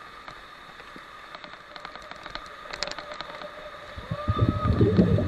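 Rushing river water with light clicks and splashes, then a loud low rumble of wind and water buffeting the microphone from about four seconds in.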